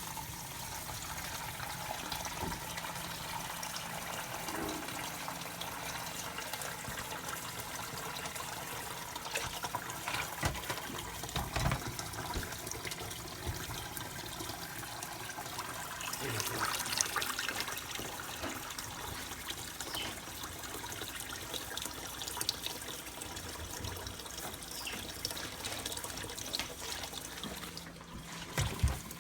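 Cold water running steadily from a tap into a container, filling it, with scattered short knocks and clatter.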